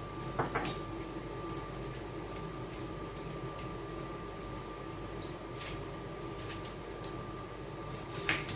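Steady background hum with a thin, constant high tone, broken by a couple of light clicks about half a second in and a few faint ticks.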